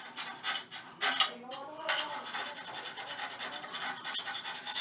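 Scraping and rubbing by hand on a hard surface during toilet repair work, irregular, with a couple of sharp scrapes or knocks a little over a second and about two seconds in.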